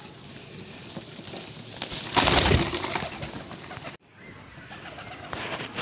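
Domestic pigeons cooing while they feed, with a loud rustling burst about two seconds in.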